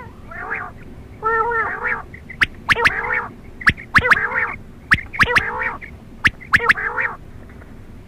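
Quail calling over and over: about six short nasal calls, each under a second and rich in overtones. Sharp clicks fall between the calls.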